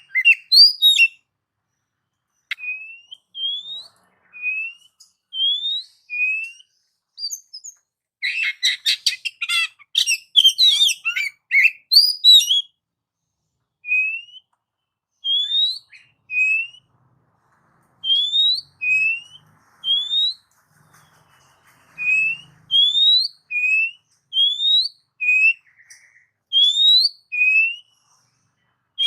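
Oriental magpie-robin singing: short rising whistled notes repeated about once a second, with a fast, jumbled burst of varied song about eight seconds in.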